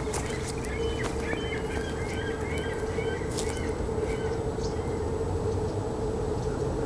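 Small birds chirping in short, repeated calls through the first half or so, over a steady low drone.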